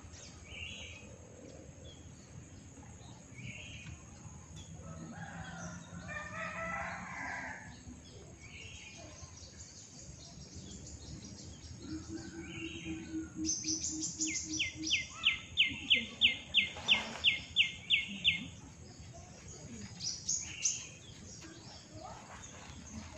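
Chickens and birds: a rooster crows about six seconds in, and later a bird gives a quick run of about a dozen loud, sharp chirps, three or four a second.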